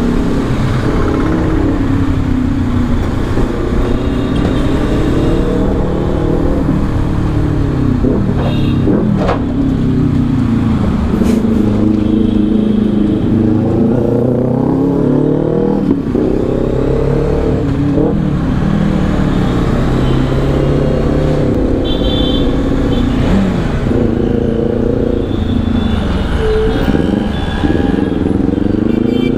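Bajaj Dominar 400's single-cylinder engine riding through stop-and-go traffic, its pitch rising and falling again and again as the throttle is opened and closed.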